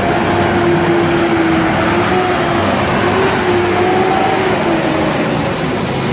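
Semi-truck tractor driving slowly past close by: a loud, steady engine noise with a held droning tone over it.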